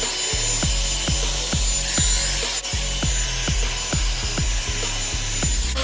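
Revlon One-Step hair dryer brush blowing a steady rushing hiss with a thin high whine, under music with a steady deep kick-drum beat.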